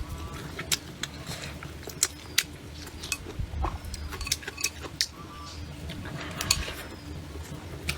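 Eating utensils tapping and clinking against bowls and plates, a run of sharp clicks at irregular intervals.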